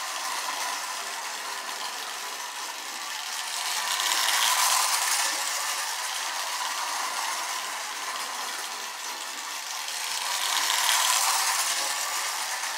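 Postwar Marx Canadian Pacific toy locomotive with its tender, freshly serviced and lubricated, running around tinplate track: a steady motor whir and clatter of wheels on the rails. It swells twice, about four seconds in and again near the end.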